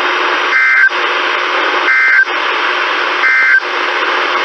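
Three short buzzing data bursts of the Emergency Alert System SAME end-of-message code, sent over NOAA Weather Radio about 1.3 s apart to close the weekly test broadcast. A steady radio hiss runs underneath.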